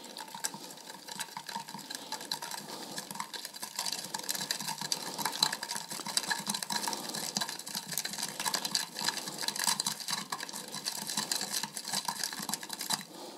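Soil and water being stirred together in a glass, mixing a soil sample for a home pH test: a steady, rapid gritty scraping and clicking that stops near the end.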